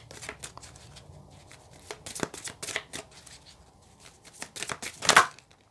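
A deck of oracle cards shuffled by hand, the cards slipping and clicking against each other in quick, light strokes, with one louder slap of the cards a little after five seconds in.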